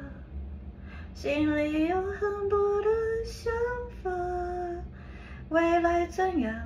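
A woman singing a slow Mandarin pop song in long held notes, starting about a second in.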